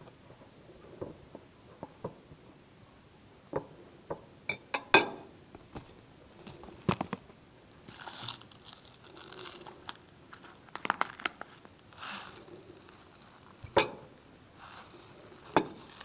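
Kitchen handling noise while making sandwiches: scattered sharp knocks and clicks of things being picked up and set down, the loudest about five seconds in, with short bursts of food packaging rustling.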